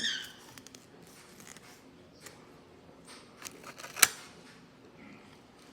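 Trading cards being handled and flipped through, with faint rustling and small ticks and one sharp snap about four seconds in.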